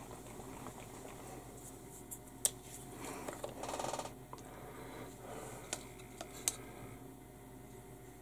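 Quiet handling noises of small hobby items on a workbench: two sharp clicks, about two and a half and six and a half seconds in, a few lighter ticks, and a short scraping rustle around three and a half seconds in.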